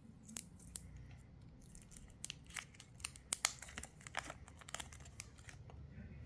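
Scattered light clicks, taps and short rustles of small plastic gadgets being handled, as the wireless mic receiver is connected to a phone. The clicks come irregularly, thickest in the middle.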